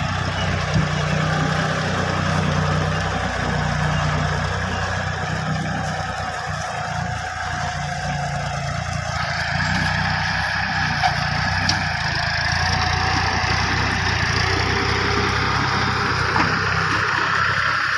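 Preet 26 HP mini tractor's diesel engine running steadily as it tows a loaded trolley, the sound growing brighter and harsher about halfway through.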